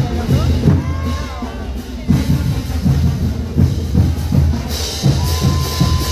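Parade band music for a tinku dance, driven by a steady heavy drum beat, with a high held note coming in near the end.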